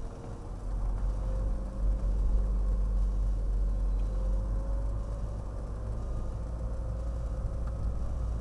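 Car engine and road rumble heard from inside the cabin, growing louder about half a second in as the car picks up speed, with a faint engine tone rising slightly in pitch.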